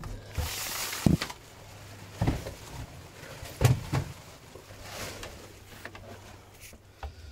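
Handling noises as things are moved about on a boat deck: rustling and several separate knocks and bumps, over a faint steady low hum.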